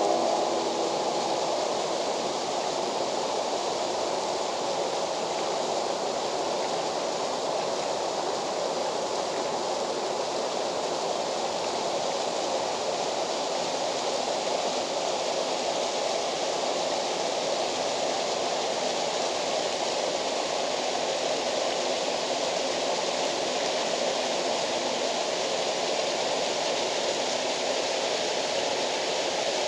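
Waterfall rushing in a steady, even roar of falling water.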